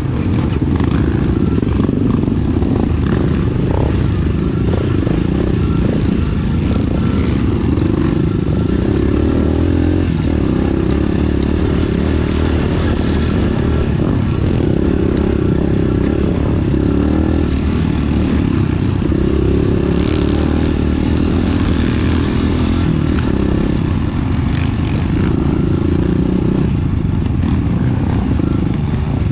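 Enduro motorcycle running steadily on a dirt trail, with a dense, low, noisy rumble throughout.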